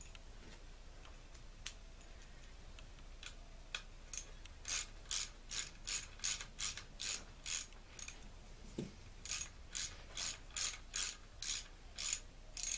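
Ratchet wrench with a 7/32 Allen bit clicking in quick back-strokes, about two or three a second, as it runs in the front bearing retainer screws of a T-90 transmission. The clicking comes in two runs with a brief pause and a soft knock between them, after a few scattered clicks at the start.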